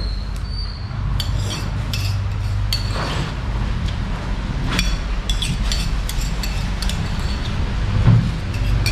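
Scattered light clicks and clinks, like small hard objects knocking together, over a steady low rumble.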